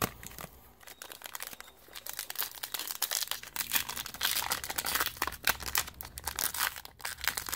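Wrapper of a trading card pack crinkling and tearing as the pack is opened by hand, sparse at first and busier from about two seconds in.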